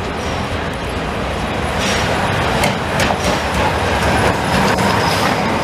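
An 8620-class steam locomotive pulling slowly into the platform, a steady rumble and hiss that grows louder as it draws alongside, with a run of sharp knocks and clanks from about two seconds in.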